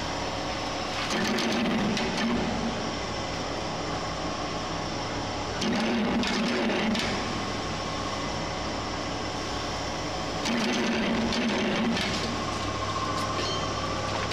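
Charcoal briquette extruder (screw-type charcoal stick machine) running, its electric motor and belt-driven screw humming steadily as it pushes out a charcoal stick. The sound swells louder for about a second and a half every four to five seconds.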